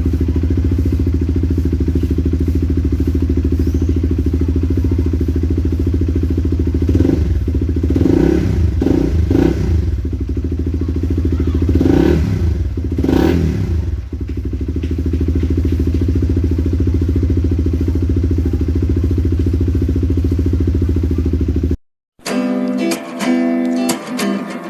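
Honda CBR150's single-cylinder four-stroke engine idling through an aftermarket Akrapovic exhaust, blipped a handful of times by quick throttle revs about a third of the way in, then settling back to idle. The engine cuts off abruptly near the end and acoustic guitar music takes over.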